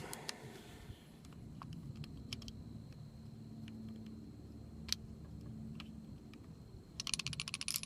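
Faint metallic clicks of a Kel-Tec PF9 9mm pistol being handled to clear a jam, scattered at first, then a quick run of rattling clicks near the end as the stuck round is shaken out. The jams are failures to extract, which the owner blames on the pistol's extractor.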